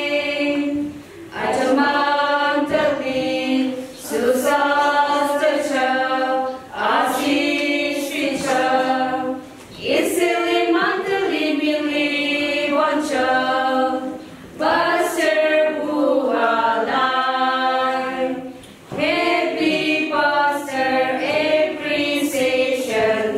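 A small group of women singing a hymn a cappella in unison, in phrases a few seconds long with short pauses for breath between them.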